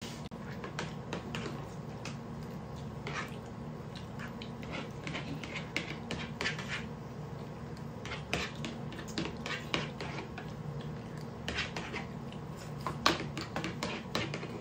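Eating sounds: irregular clicks and scrapes of a spoon and fingers on steel plates, with chewing mouth sounds, over a low steady hum.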